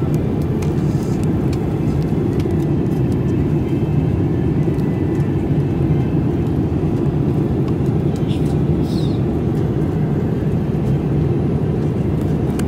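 Steady cabin noise of a Boeing 787-8 airliner in flight: a deep, even rush, with faint clicks now and then.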